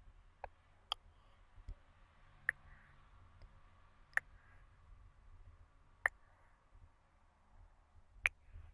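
ASMR mouth sounds close to the microphone: about six sharp tongue clicks at uneven gaps of one to two seconds, over soft breathing.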